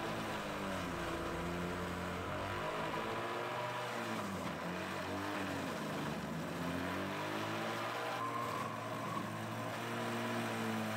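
Electric juicer's motor running while juicing carrots, a steady hum whose pitch sags and recovers several times as the load changes.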